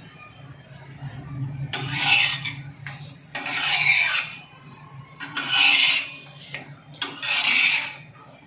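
A flat metal spatula scraping over a spinach paratha on a hot tava, four rasping strokes about every second and a half, over a steady low hum.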